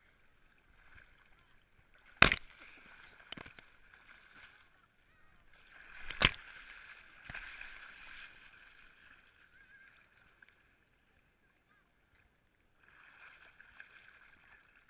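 Shallow sea water splashing and lapping against a waterproof-housed action camera at the waterline, heard muffled through the housing. There are two sharp knocks on the camera about two and six seconds in, each with a smaller one a second later. The sound drops out for a couple of seconds near the end, then the splashing returns.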